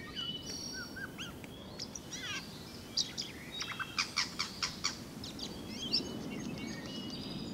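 Siberian jays calling with a mix of short, varied chirps and whistles, like a parrot's tweet. A quick run of sharp, clicking notes comes in the middle.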